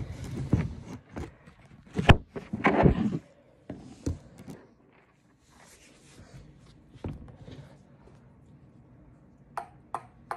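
Handling noise from a phone camera being carried and set down: cloth rustling with several knocks and thuds in the first few seconds, then single knocks. Three sharp ticks come near the end.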